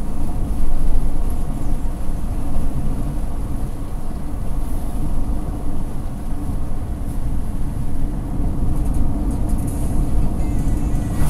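Hyundai Tucson driving at highway speed, heard from inside the cabin: a steady, loud low rumble of road, tyre and engine noise.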